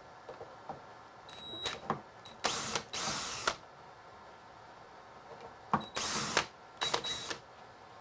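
A cordless drill/driver with a T25 Torx bit runs in four short bursts of about half a second each, backing out bolts on the scroll saw, with a few small metal clicks between the bursts.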